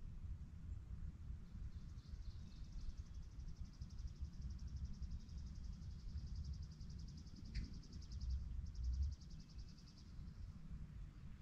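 A high, very rapid trill held for several seconds, breaking off briefly then starting again for a couple of seconds more, over a steady low rumble. A single sharp tick comes a little past halfway.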